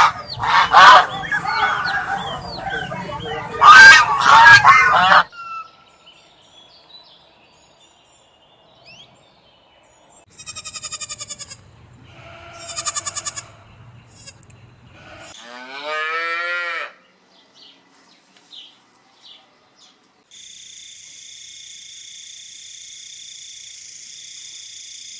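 A run of different animal calls: loud overlapping honking calls for about five seconds, then two short buzzy calls, a single drawn-out pitched call, and a steady high-pitched hiss with a held tone near the end.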